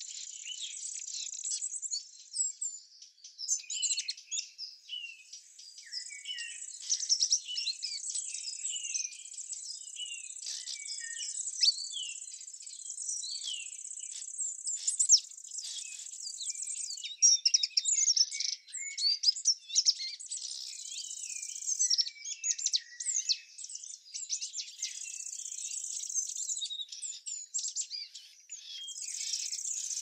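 Songbirds chirping and singing in quick, overlapping calls, over a high, steady insect buzz that drops out and comes back several times.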